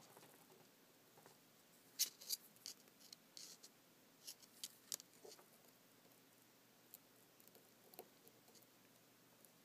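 Faint handling sounds of wire leads being worked into a solderless breadboard: a cluster of small sharp clicks and scratches about two to five seconds in, with a few fainter ticks later.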